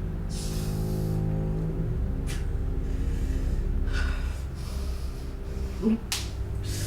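A person breathing sharply through the nose in several short bursts, over a low, steady musical drone.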